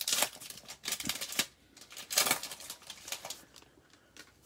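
Foil wrapper of a 2020 Bowman baseball card pack crinkling and tearing as it is peeled open and the cards are pulled out, in four short rustling bursts about a second apart that die away near the end.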